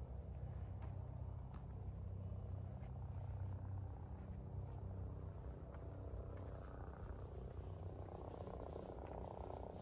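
A low, steady engine hum.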